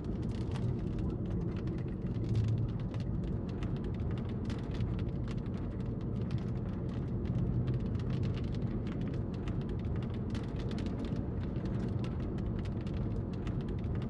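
Vehicle driving, heard from inside the cabin: a steady low road-and-engine rumble with many faint ticks scattered through it.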